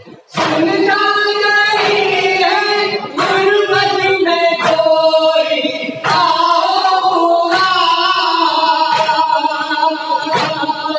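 Men's voices chanting a noha, a mourning lament, in unison into a microphone, starting a moment in. Sharp hand slaps of matam, chest-beating, fall about every one and a half seconds and keep time with the chant.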